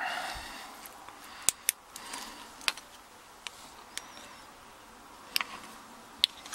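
Small hand-handling noises: a brief rustle at the start, then a scatter of sharp, separate clicks and taps as an emptied metal lock cylinder is turned in the fingers against a torch.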